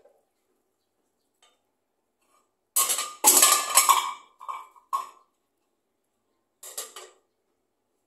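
Short, loud bursts of scratchy rustling in a dry-grass nest of scaly-breasted munia nestlings: a cluster about three seconds in and a shorter burst near the end.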